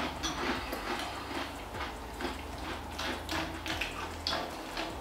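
Close-up chewing: a person crunching a mouthful of crunchy grain-free fruity cereal in milk, with many small irregular wet crunches.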